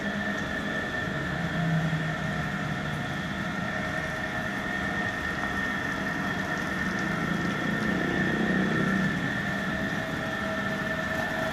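A motor running steadily: a constant high whine over a low hum, which swells slightly about two seconds in and again near eight seconds.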